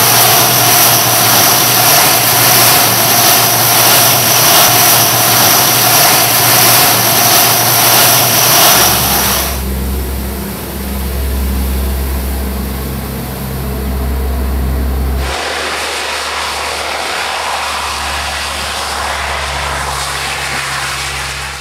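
Turboprop engines of a ski-equipped LC-130 Hercules running, a loud steady drone with a high whine. The sound changes abruptly about nine and a half seconds in and again about fifteen seconds in, the whine dropping away and a deeper hum coming up.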